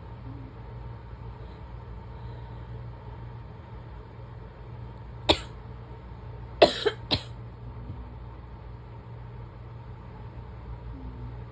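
An asthmatic woman's barking cough: one sharp cough about five seconds in, then a quick run of three coughs a second and a half later, over a steady low background hum.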